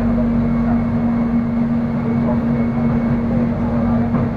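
Cabin noise of a moving airport rail link electric train: a steady low rumble of the wheels on the track with a constant hum.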